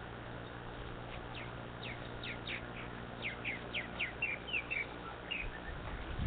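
Purple martin calling: a quick run of short descending chirps that starts about a second in and tails off near the end.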